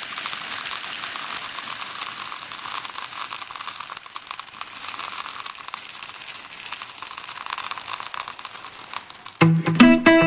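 Dense crinkling crackle of a foil wrapper being handled and unwrapped, going on steadily; guitar music comes back in near the end.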